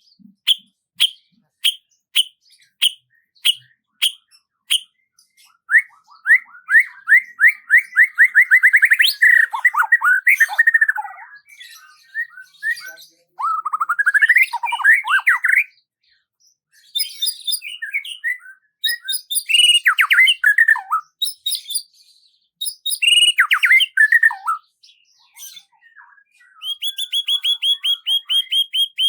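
Songbirds singing: a run of short, evenly spaced high chirps, about two a second, then varied rapid trilled and warbling phrases with short pauses, ending in a fast high trill.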